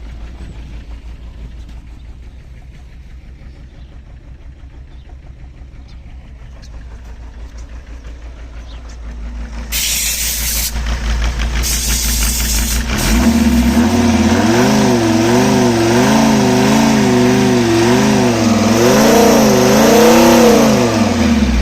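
Mercedes Sprinter diesel engine running unevenly and shaking, with the misfires the mechanic puts down to its injectors. It idles quietly at first, gets louder about ten seconds in, and from about thirteen seconds its speed rises and falls over and over before dropping back near the end.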